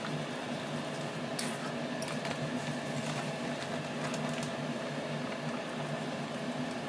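Water being poured into a simmering pot of food in a large kadai, splashing and bubbling, with a few brief splashy clicks, over a steady low kitchen hum.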